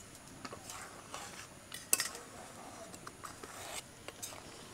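A spoon stirring milk that has just split into chhana curds and whey in a kadai: soft swishes with scattered clinks against the pan, one sharper clink about two seconds in.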